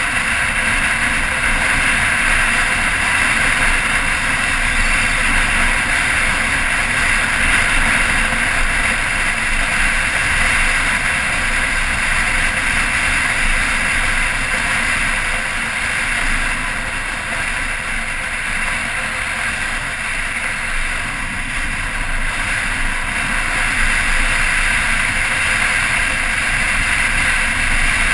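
Touring motorcycle riding along at a steady speed, its engine and the rushing wind blended into a steady noise, slightly quieter for a few seconds past the middle.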